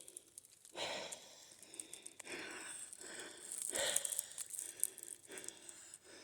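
A person breathing audibly, a few soft breaths about a second apart.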